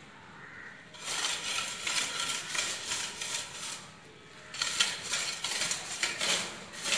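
Gritty scraping and rubbing in wet cement mortar as the bed for a floor tile is spread and grooved by hand, in two bouts of quick strokes, about a second in and again about four and a half seconds in.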